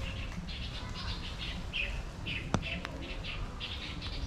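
Birds chirping in quick, repeated bursts of high calls, with a single sharp click about two and a half seconds in.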